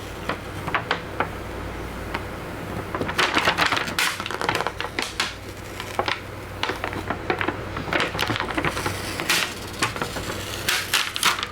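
A stock screen protector being peeled off a Wacom Cintiq Companion 2 tablet's screen: irregular clicks and crackles as the film and its adhesive let go, coming in thicker clusters about a third of the way in and again in the second half.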